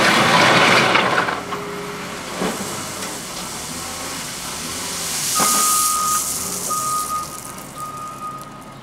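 Caterpillar 930H wheel loader working, its reverse alarm sounding from about five seconds in as a steady beep, each tone long and about one a second. A loud rushing noise fills the first second, and a shorter hiss comes just before the beeping starts.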